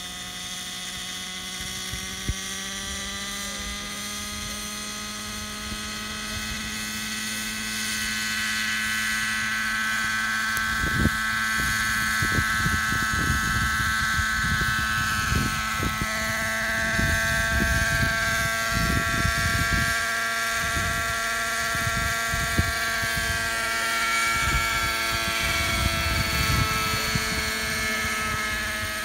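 Radio-controlled Hirobo Freya helicopter's glow engine and rotor running, a steady buzzing whine that rises a little in pitch as it lifts off and flies. Wind buffets the microphone in gusts from about ten seconds in.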